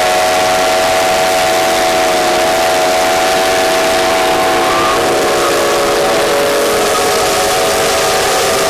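Steam traction engine whistles blowing together at noon in one long, steady chord of several pitches over a strong hiss of steam. The lowest tone drops out about six and a half seconds in.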